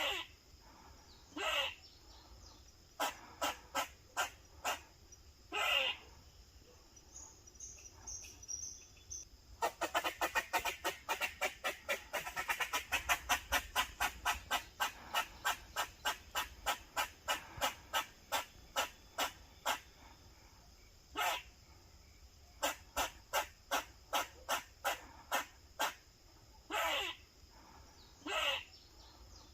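Grey squirrel barking in its protective alarm call: short, sharp barks in irregular series, with a long fast run of about four or five barks a second through the middle. Several longer, drawn-out calls come between the runs.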